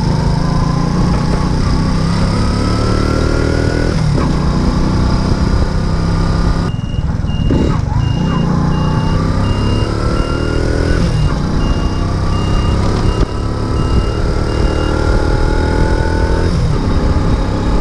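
Racer Alpha RC50 moped's 50 cc four-stroke single engine running under way, its pitch climbing under throttle and dropping back about three times, with wind noise over it. From about seven seconds in, a thin electronic beep repeats about twice a second for some eight seconds.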